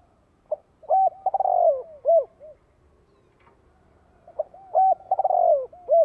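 Spotted dove calling twice, about four seconds apart. Each phrase is a short coo, then a run of coos into a long falling coo, and two softer trailing notes. This is the decoy call used to lure wild spotted doves.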